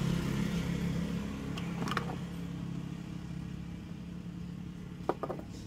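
Scooter engine idling steadily and slowly growing quieter, with a few light clicks from handling the throttle-position sensor and its parts at the throttle body.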